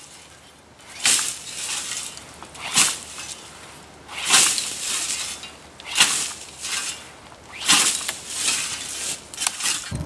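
A scythe with a 30-inch blade swishing through long dry grass in repeated strokes, about six swishes roughly one every second and a half.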